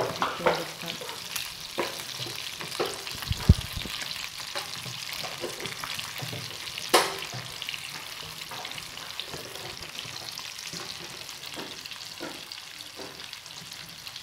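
Coated chicken pieces deep-frying in hot oil in a metal pan: a steady sizzling hiss. Scattered clicks and knocks come as a black slotted spoon turns the pieces once one side is fried, with a sharp knock about three and a half seconds in and another near seven seconds.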